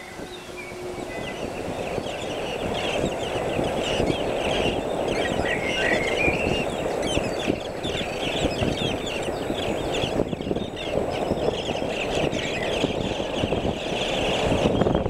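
A crowd of birds calling together: a dense, continuous chatter of many short chirps, fading in over the first couple of seconds.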